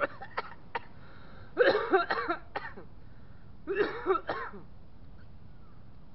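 A man clearing his throat twice, about a second and a half in and again near four seconds, after a few short clicks.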